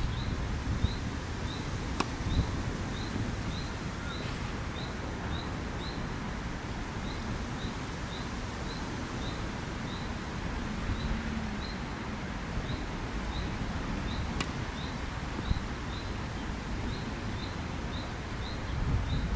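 Outdoor ambience with wind rumbling on the microphone and a bird giving repeated short high chirps, about two a second. A tennis racket hits a ball twice, once about two seconds in and again about fourteen seconds in.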